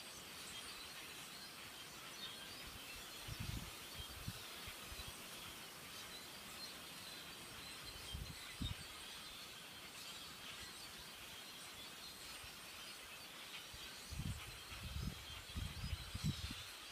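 A large flock of common grackles calling together, a dense, steady chatter of many small squeaky chirps. A few low bumps on the microphone break in, most of them close together near the end.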